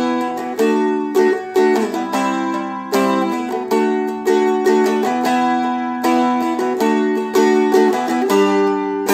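Seagull Merlin, a four-string fretted dulcimer-style instrument, strummed steadily through a chorus chord progression. The chords change every second or so.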